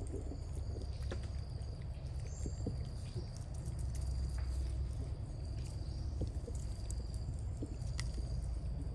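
Outdoor ambience: a steady low rumble under a thin, steady high-pitched insect drone that breaks off briefly now and then, with scattered small ticks and clicks.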